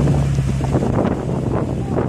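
Jeep Cherokee XJ engine pulling steadily under load as it crawls up a steep rock face. The low, even engine note fades away after about a second and a half, with wind buffeting the microphone throughout.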